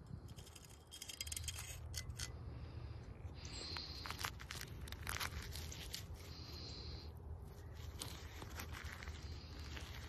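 Latex balloon skin tearing and being peeled off a frozen water-balloon ice ball, with rubbery scraping and scattered sharp crackles.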